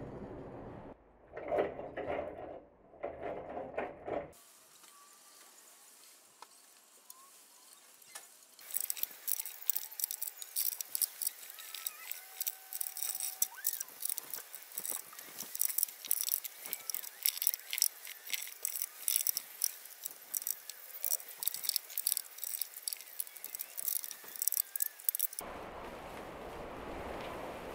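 A stiff brush stroked rapidly back and forth over a sheet-steel tray: a dense, scratchy run of short rasps lasting about sixteen seconds.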